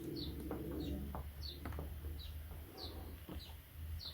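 A bird chirping in the background, a short high falling chirp repeated about every half second, over a faint low steady hum.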